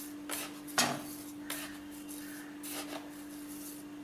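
Metal utensils clinking against a non-stick kadai of simmering milk payasam as sugar is added: four short clinks, the loudest about a second in, over a steady low hum.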